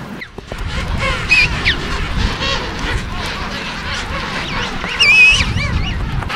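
King penguin colony calling: many overlapping wavering calls, with one louder call about a second and a half in and the loudest around five seconds in, over a steady low rumble.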